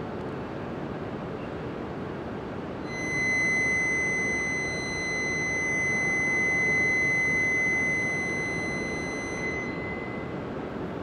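Shinkansen platform departure buzzer sounding one steady, high-pitched tone for about seven seconds, starting about three seconds in: the signal that the train doors are about to close. Low platform noise runs underneath.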